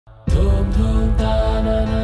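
Background music starts abruptly about a quarter second in: held pitched notes over a deep bass, the notes changing every half second or so.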